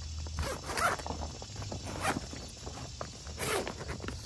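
Stiff waterproof fabric of a rooftop cargo carrier bag rustling and crinkling as it is unfolded and pulled open, in three rasping bursts about a second or so apart.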